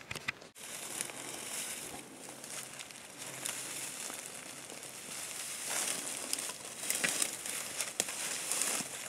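Close rustling and crinkling noise against the microphone in irregular spells, louder in the second half, after a sudden break about half a second in.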